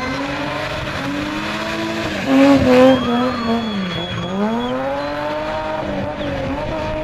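BMW E30 spinning, its engine revving hard and swinging up and down in pitch as the tyres squeal and skid. A louder surge comes about two and a half seconds in, and the revs dip and climb again about four seconds in.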